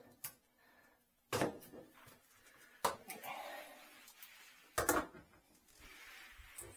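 Sharp clicks and knocks from tools and a shower-head fitting being handled, four of them spread over several seconds, with faint rustling between.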